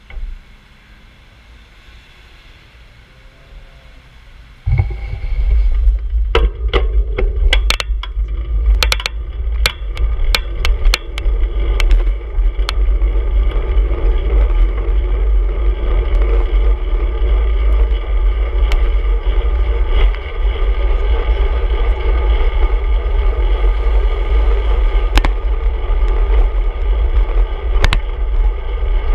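Wind and road noise on a handlebar-mounted action camera as the bicycle moves off and rides at speed. It starts suddenly about five seconds in as a steady, heavy rumble, with a run of sharp clicks and rattles over the next several seconds and a couple more near the end.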